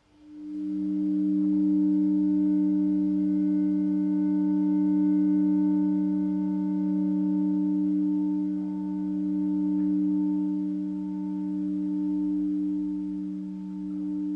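A sustained drone of two low steady tones held together, with fainter higher tones above them. It swells in within the first second and then holds, rising and easing slightly in loudness.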